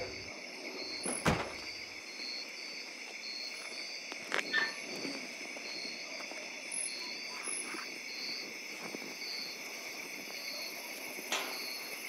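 Night chorus of crickets chirping steadily in regular pulses, with a few sharp knocks, the clearest about a second in.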